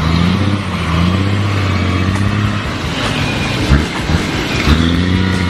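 Truck engine revving, its pitch rising and falling, with two short thumps about a second apart in the second half.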